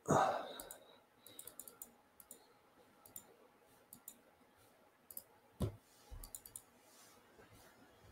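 Computer mouse clicking in short clusters of quick clicks, with a louder thump right at the start and a stronger knock just past halfway.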